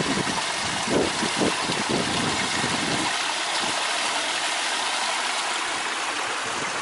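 A small waterfall splashing with a steady rush of water. Irregular low rumbling runs under it for the first three seconds and then stops.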